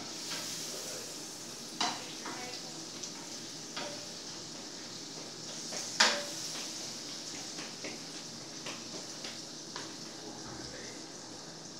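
Food sizzling in a frying pan, a steady hiss, with a few sharp clinks of a utensil against the pan; the loudest clink comes about six seconds in.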